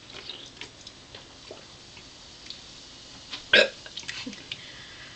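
A person letting out one short burp about three and a half seconds in; otherwise quiet, with a few faint small clicks.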